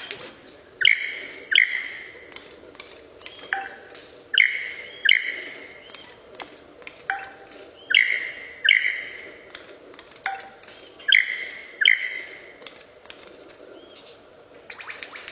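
A bird calling: four pairs of short, loud calls about three and a half seconds apart, most pairs led by a fainter single note.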